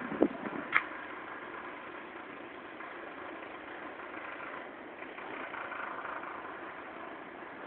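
A large ship's engine idling with a steady drone. Two sharp knocks come within the first second.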